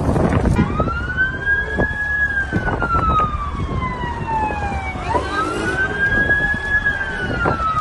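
Emergency vehicle siren wailing. Each cycle rises quickly, holds, then slides slowly down over about four seconds, and it starts over twice. Underneath is a steady noise with a few sharp cracks.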